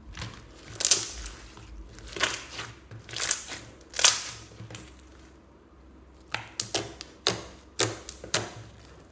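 Hands squishing and pressing thick glittery slime: a few wet squelches, then a quick series of sharp pops and clicks in the second half as the fingers push into the slime and burst its air pockets.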